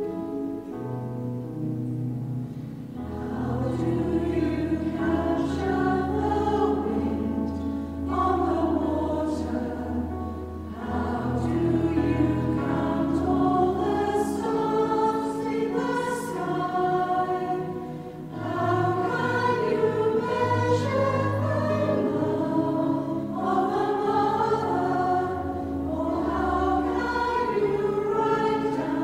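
Mixed church choir singing a Christmas carol in parts, over held low notes from an instrumental accompaniment.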